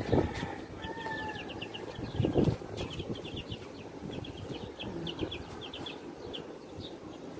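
Young chicks peeping in a brooder cage: quick runs of short high cheeps, repeated throughout. A dull knock sounds about two seconds in.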